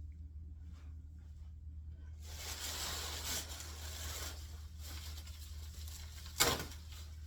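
Packing materials being handled while a box is packed: a rustling, tearing noise for about two seconds, then a single sharp knock near the end.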